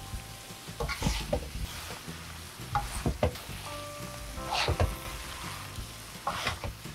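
Monkfish and bean sprouts in a thick spicy sauce being stir-fried over high heat in a frying pan. There is a low sizzle, and the utensil turning the food makes scraping, stirring strokes every second or two.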